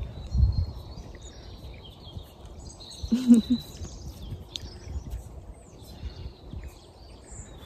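Small birds chirping in the background over a low wind rumble on the microphone, with one short, low voice-like sound about three seconds in.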